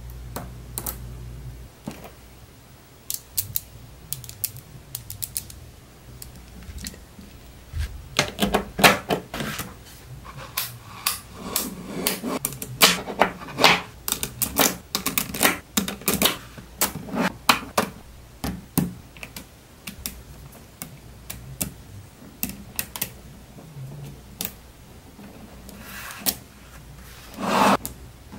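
Small neodymium magnet balls clicking and snapping together as they are pressed onto the model and pulled apart. The clicks come in irregular clusters and are thickest in the middle.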